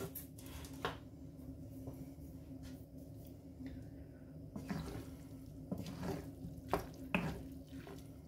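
Wooden spatula stirring fried rice in a non-stick frying pan: soft, scattered scrapes and clicks against the pan, over a faint steady low hum.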